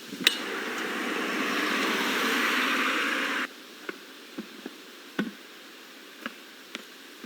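A sharp click, then a steady rushing hiss for about three seconds that cuts off abruptly, followed by a few light clicks.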